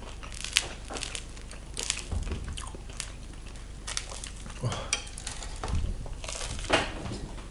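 Crisp crust of a sourdough loaf crackling and snapping as a piece is torn apart by hand, in scattered sharp cracks; near the end the bread is bitten into.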